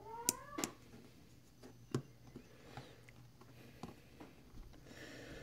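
Small metal clicks and light scraping as a Spyderco Positron folding knife's steel liner and handle parts are handled and worked apart, with a short rising squeak near the start.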